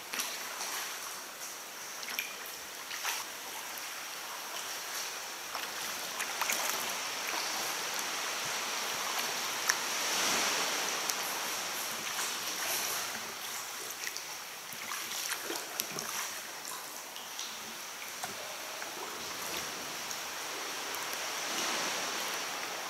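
Seawater lapping and splashing inside a sea cave, with irregular splashes from a sea kayak's paddle strokes; the water noise swells about ten seconds in.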